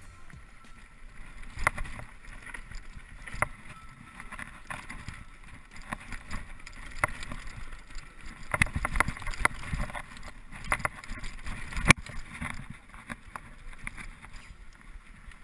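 Mountain bike riding fast down a rocky dirt trail: tyres running over dirt and stones, with the bike rattling and knocking over bumps and wind on the microphone. One hard knock about twelve seconds in is the loudest.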